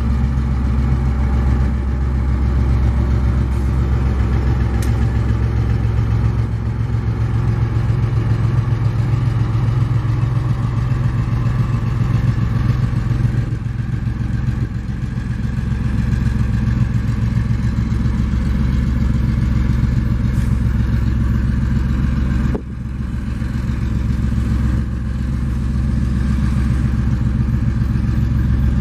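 EMD GR12W diesel locomotive's engine running with a steady low throb as it hauls a train of loaded mineral hopper cars. The level dips suddenly about three-quarters of the way through, then comes back.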